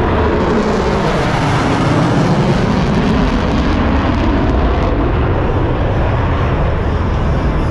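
Jet noise from USAF Thunderbirds F-16 Fighting Falcons flying past in formation: a loud, steady rush with no clear rise or fall.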